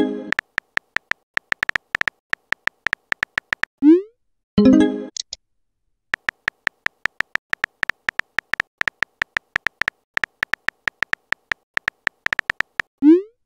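Texting-app keyboard sound effects: rapid short beep-clicks, several a second, as each letter is typed, in two runs of typing. At the end of each run a short rising swoosh marks a message being sent, and a brief tonal blip follows the first.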